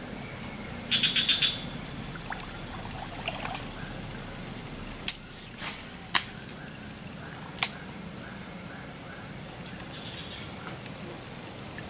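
Insects trilling steadily at a high pitch, with a short call about a second in and a few sharp clicks in the middle.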